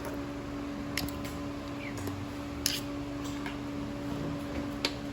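A knife cutting rib tips off a slab of cooked ribs, with three sharp knocks of the blade on the cutting board, the loudest near the middle. A steady low hum runs underneath.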